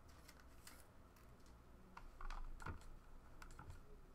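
Faint, scattered light clicks and taps, a little louder about halfway through, over an otherwise near-silent background.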